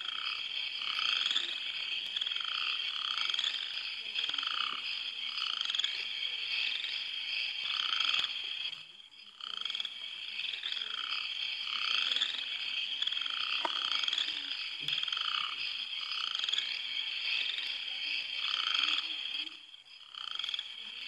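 Night chorus of frogs: short calls repeating about once a second over a steady high-pitched chirring. The chorus drops away briefly about nine seconds in and again near the end.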